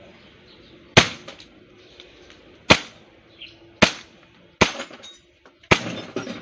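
Gas blowback hi-capa airsoft pistol firing a string of five sharp shots, spaced about a second apart, at a glass bottle. The bottle is hit and shatters, with glass ringing after the last shots.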